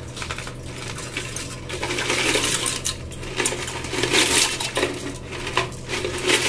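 Dry fusilli and penne pasta poured from a plastic jar into an aluminium pot, the hard pieces rattling and clattering in a dense run of small clicks.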